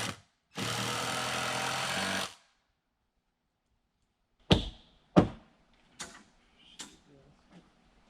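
A handheld power tool runs in one burst of about two seconds and stops suddenly. After a pause come five sharp knocks, a little under a second apart.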